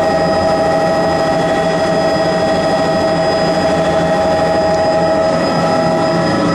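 Helicopter engine and rotor running steadily, heard from inside the cabin: a constant whine over loud engine noise, with a slight shift in pitch near the end.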